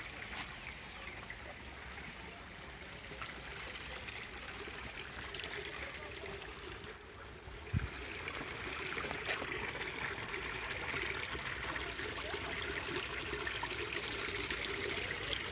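Small garden stream trickling and splashing over rocks, a steady wash of water that gets louder about halfway through, with one brief soft bump near the middle.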